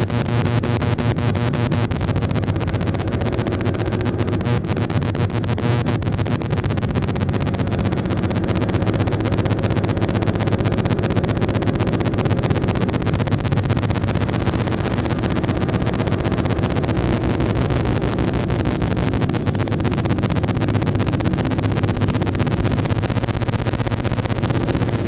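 Live noise improvisation on circuit-bent electronics: a dense, harsh wash of noise over a low drone. A high whistle wavers and falls for a few seconds about two-thirds of the way in.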